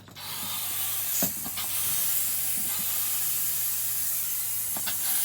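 Steady hiss of pressurised air, starting abruptly, as a pump forces the water-contaminated fluid out of a marine gearbox through a drain hose; a couple of faint knocks sound over it.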